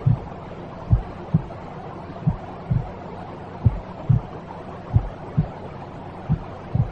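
Slow heartbeat sound, low double thumps (lub-dub) repeating about every second and a third, over a steady white-noise hiss.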